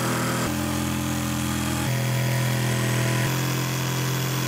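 Electric jigsaw cutting a wooden board, with a Henry vacuum cleaner running alongside, its nozzle held at the blade to suck up the sawdust. Steady motor whine whose note changes in steps a few times as the cut goes on.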